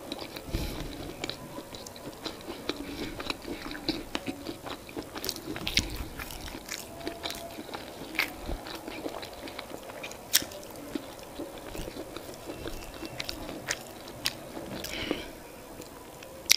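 Close-miked chewing of soft boiled yam, with sharp wet mouth clicks scattered throughout.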